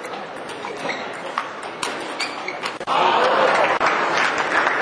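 Table tennis rally: the celluloid ball clicks off the paddles and table about twice a second. About three seconds in, the spectators break into loud cheering and applause as the point ends.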